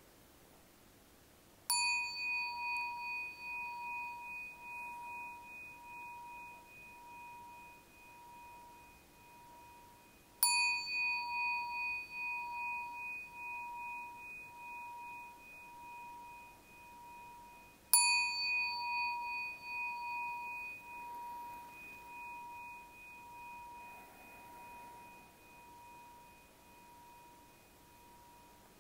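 Meditation gong struck three times, about eight seconds apart, each strike ringing on in a clear, high, wavering tone that slowly dies away. The three strokes signal the end of the meditation.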